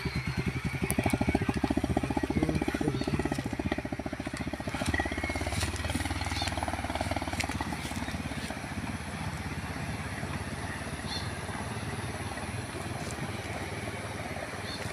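Small motorcycle engine running as the bike rides away, its steady putter fading over the first half until only a faint hum is left.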